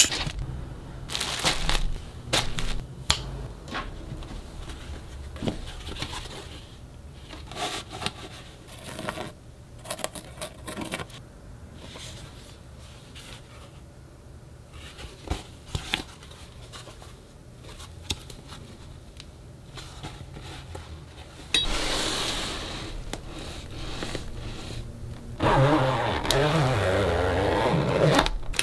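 Handling sounds of unboxed merchandise: sparse soft taps, scrapes and rustles as a fabric cap and a clear vinyl backpack are turned over, then two longer, louder spells of plastic crinkling and rustling in the last third.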